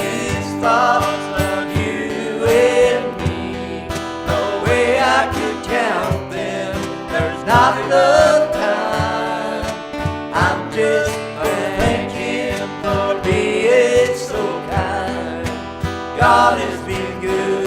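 Country gospel song with guitar in an instrumental passage between verses, over a regular beat.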